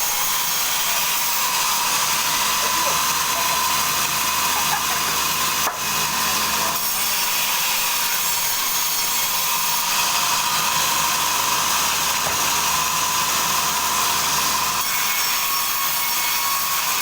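Sawmill saw cutting lengthwise through a log: a steady, even noise, mostly high in pitch, that dips briefly about six seconds in.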